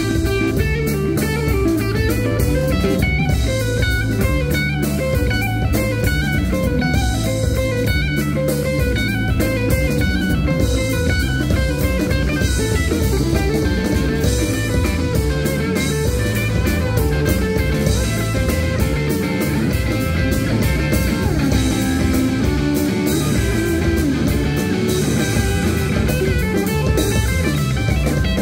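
Live rock band playing an instrumental passage: electric guitar over a drum kit, loud and steady.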